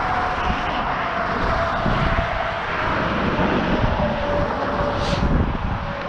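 Jet airplane flying over: a steady rushing noise with a faint whine that slowly drops in pitch.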